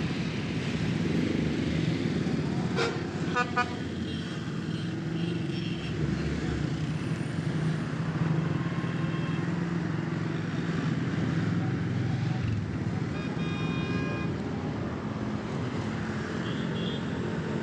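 Road traffic running steadily past, with short horn toots about three seconds in and again past the middle.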